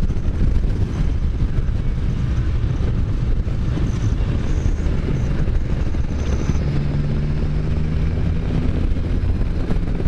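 Wind buffeting the microphone while riding a Can-Am Spyder, over the low hum of its engine; about two thirds of the way through, a steady engine tone becomes clearer.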